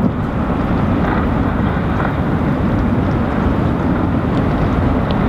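Steady low rumble of a boat's engine, with wind buffeting the microphone.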